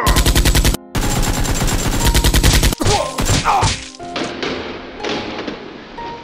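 Automatic gunfire sound effect: two rapid bursts of about ten shots a second, the second longer, in the first three seconds.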